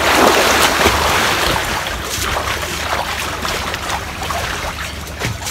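Pool water splashing and churning as a swimmer kicks through it, loudest at the start and slowly dying away.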